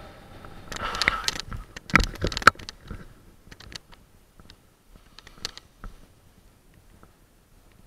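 A paraglider pilot landing on concrete: a quick run of feet touching down and scuffing, with knocks and rattles from the harness and camera mount. Then scattered lighter clicks and rustles as the wing settles and the lines and harness are handled.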